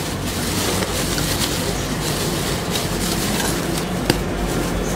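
Plastic food wrapping rustling and crinkling in the hands, a steady dense rustle over a low hum, with a sharp tick about four seconds in.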